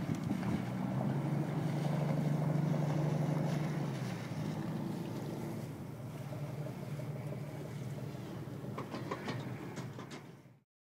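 Small boat's engine running as it motors through the harbour: a steady low hum, loudest a couple of seconds in and then fading. A few clicks come near the end before the sound cuts off suddenly.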